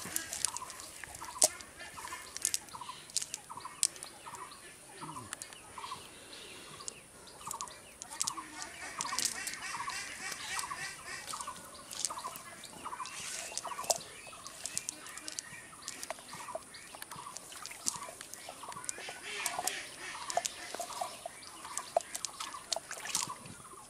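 Birds calling: one bird repeats a short note about twice a second through the first half, while higher chirps come and go. Scattered sharp clicks and a faint steady high hiss run underneath.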